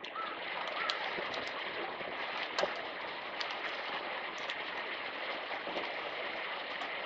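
Wood campfire burning with a steady hiss and many irregular sharp crackles and pops.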